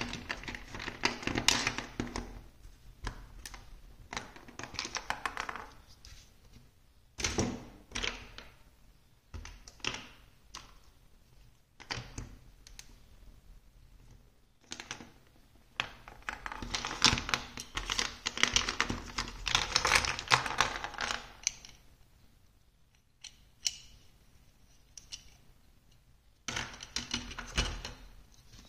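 Hollow plastic building blocks and marble-run pieces clattering and clicking as hands rummage through a heap of them and press pieces together. Busy spells of clacking come near the start, in the middle and near the end, with single clicks and knocks between.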